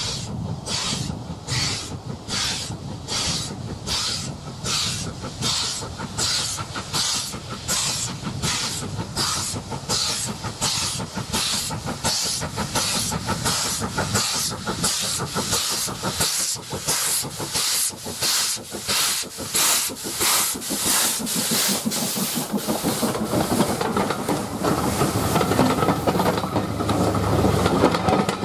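LMS Black Five 4-6-0 steam locomotive working a passenger train, its two-cylinder exhaust chuffing in a regular beat with steam hissing. Near the end the chuffs fade into a louder, steady rumble of coaches running past on the rails.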